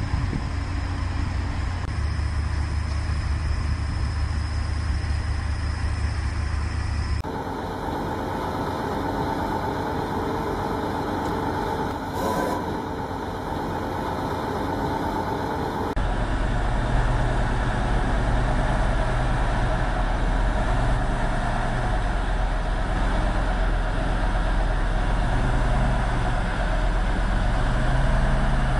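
Added sound effects of a heavy diesel vehicle engine running steadily, with a low hum throughout. The recording changes abruptly about seven and sixteen seconds in, where separate engine clips are spliced together, and a brief hiss comes about twelve seconds in.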